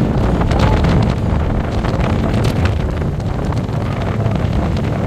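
Wind blowing hard across the microphone: a loud, steady, low rushing noise.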